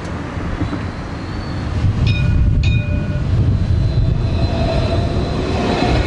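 Tenerife tram running: a steady low rumble, two short signal tones about two seconds in, then a thin electric whine that rises slightly as the tram moves.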